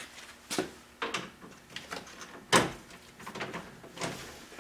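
Hands working at a GMC Sonoma pickup's door: scattered clicks and knocks of parts being handled, the loudest a sharp knock about two and a half seconds in.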